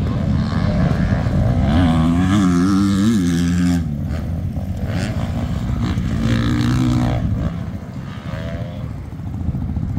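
Motocross bike engine revving on the track, its pitch wavering rapidly up and down with the throttle, then dropping back in loudness about three-quarters of the way through.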